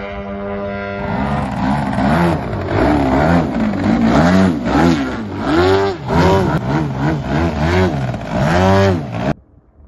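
Extra 330SC radio-controlled aerobatic model plane's engine and propeller revving up and down in quick swells, about two a second, as the plane hovers nose-up near the ground. The revving cuts off suddenly near the end, and music with a droning tone plays in the first second.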